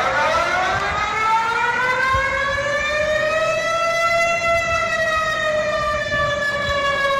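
Malaysia's public emergency warning siren, played as a recording: one long wail that starts abruptly, rises slowly in pitch to a peak about four seconds in and sinks back a little toward the end.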